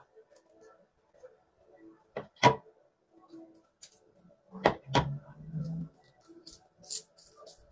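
A few sharp knocks, the loudest about two and a half seconds in and a close pair near five seconds, then soft rustling and squishing as hands work a banana and mayonnaise conditioner through a child's hair.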